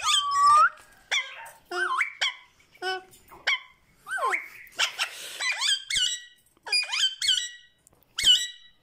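Alexandrine parakeets calling: a rapid series of short, high, harsh squawks with sliding pitch, with one longer arching call near the start.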